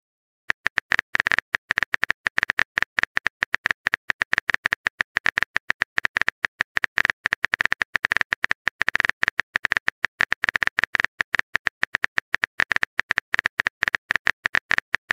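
Phone keyboard typing sound effect: a rapid, uneven string of short tapping clicks as a text message is typed out.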